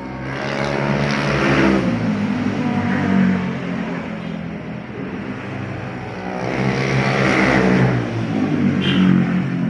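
Two motor vehicles passing by one after the other, each engine note swelling and sliding in pitch as it goes past: the first about half a second in, the second near the end.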